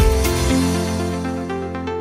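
Electronic background music with synth chords; the drum beat drops out about half a second in, leaving held chords.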